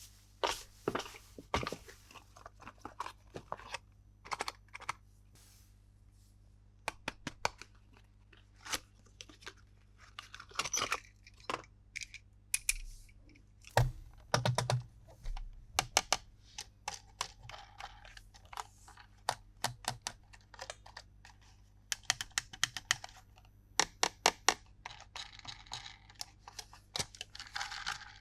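Plastic toy pieces and packaging being handled: irregular sharp clicks and taps, mixed with a few stretches of rustling and tearing.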